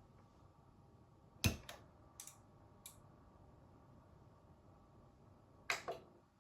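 A series of sharp clicks: one loud click about a second and a half in, three fainter ones over the next second and a half, and a quick double click near the end, over a faint steady background hiss.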